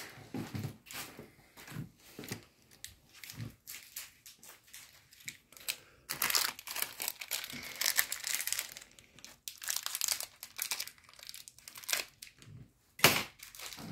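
Thin plastic bag of mounting screws crinkling as it is handled, after a few quiet knocks, and a sharp snip of scissors cutting it open near the end.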